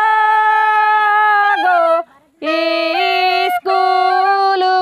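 A woman's voice singing a Karam geet, a Kudmali folk song, with no accompaniment. The notes are high and long-held, in three phrases, with a short break for breath about two seconds in and a brief one again near the end.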